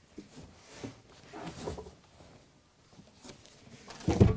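Handling sounds: a few light knocks and rustles, then one heavy, low thump shortly before the end.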